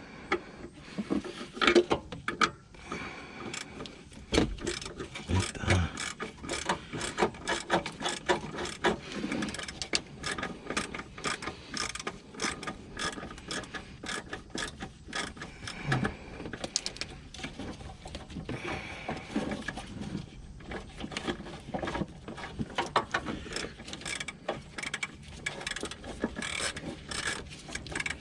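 Socket ratchet clicking in runs as it turns, with occasional metallic knocks, while the bolt holding a car horn to its mount is undone.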